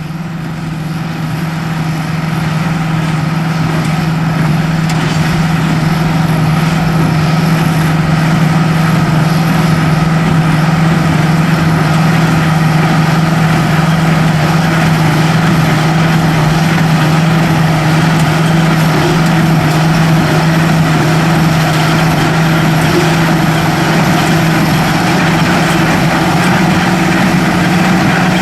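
Large farm tractor's diesel engine running steadily under load while it powers a small square baler in the field, with a strong low drone. The sound grows louder over the first few seconds, then holds level.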